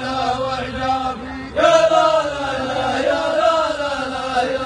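Men's voices chanting rajaz verse in long, held melodic phrases, with a new, louder phrase starting about a second and a half in.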